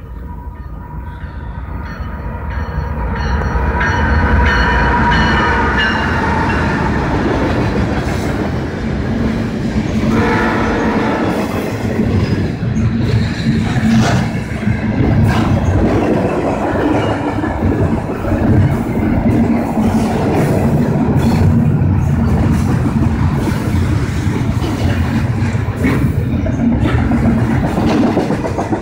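Canadian National freight train passing at speed: its approaching locomotive sounds a horn that grows louder over the first few seconds. Then the double-stack intermodal container cars roll by with a steady loud rumble and a rapid clatter of wheels on the rails.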